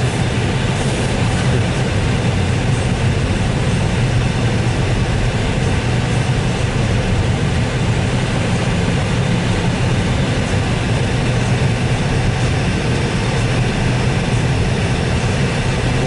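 Steady cabin noise of a four-wheel-drive Jeep on the move: the engine's low hum and tyre rumble on a snow-covered road, unchanging throughout.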